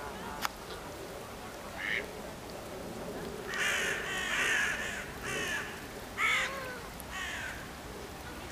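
Harsh, cawing bird calls: one short call about two seconds in, then a run of several calls in the second half.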